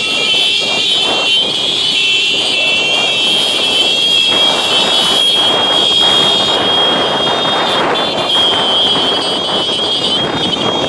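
Many motorcycle engines running together in a moving convoy, heard from one of the bikes in the pack. A steady high-pitched buzz sits over the engine and road noise.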